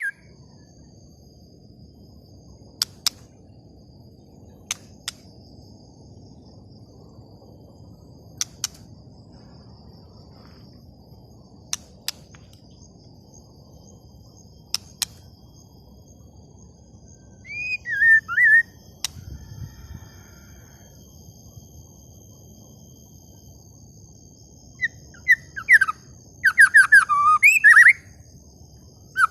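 Songbird calling: sharp double ticks every three seconds or so, then a short burst of whistled chirps about 18 seconds in, and a louder run of rapid whistled chirps near the end. Faint steady high-pitched tones sound underneath.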